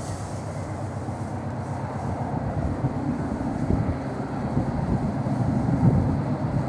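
Class 56 diesel locomotive 56094, its Ruston-Paxman 16-cylinder engine working at full power as it hauls a loaded timber train up a gradient. The deep, continuous engine note grows slightly louder as the locomotive approaches.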